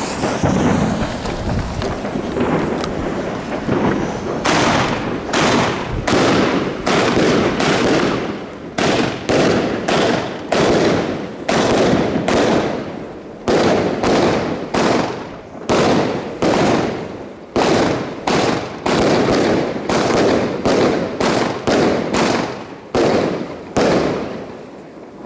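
Magnum WCKD SIX 20-shot firework cakes with 25 mm tubes firing. A few seconds of hissing crackle as the fuses burn, then a steady string of sharp shots bursting overhead, about two a second, each trailing off.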